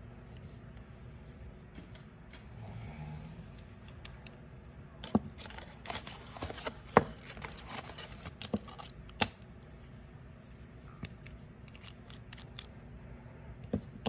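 Gel polish bottles and plastic nail swatch tips handled on a tabletop: scattered sharp clicks and taps, the loudest about seven seconds in, over a faint low hum.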